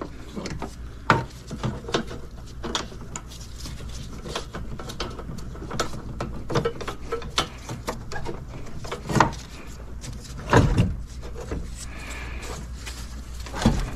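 Scattered knocks, clicks and rubs of a new AC condenser and its mounts being handled, lined up and pushed down against the radiator, with a few louder knocks about two thirds of the way through, over a steady low hum.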